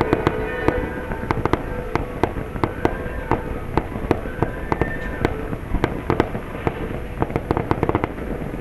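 Fireworks going off: a rapid, irregular volley of sharp bangs and crackles that thins out near the end.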